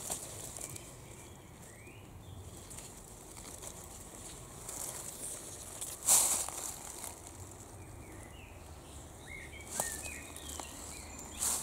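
Bittersweet nightshade leaves rustling as a hand brushes through them, with one loud rustle about six seconds in and shorter ones near the end. A few faint short bird chirps sound in the background.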